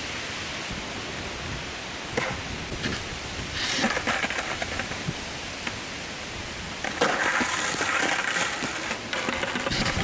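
Wind on the microphone and rustling through trees, with louder gusts about four seconds in and again from about seven seconds; a single faint knock about two seconds in.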